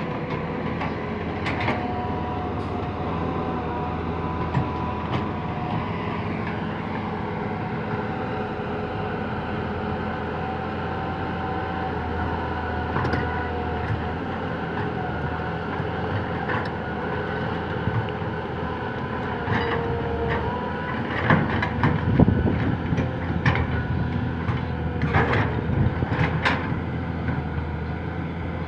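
Tracked hydraulic excavator digging soil: its diesel engine runs steadily under a hydraulic whine that shifts in pitch as the boom and bucket move. Knocks and clanks from the bucket working the earth, loudest in the last third.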